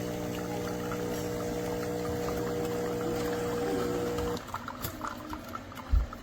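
Espresso machine pump humming steadily while coffee pours, cutting off abruptly about four seconds in; a few low thumps follow near the end.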